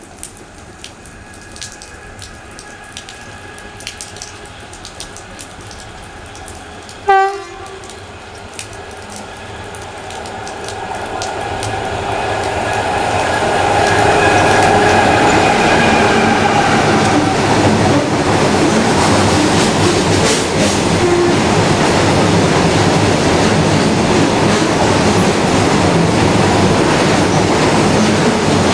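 WAG7 electric locomotive gives one short horn blast about seven seconds in. It then comes up and runs past at speed hauling empty BCNA covered wagons, the rumble and wheel clatter building for a few seconds into a steady loud rush.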